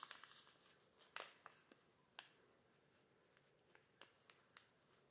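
Faint crinkling of a small clear plastic bag as a trading card is slid out of it: a few light rustles and clicks in the first two seconds or so, then only sparse soft ticks.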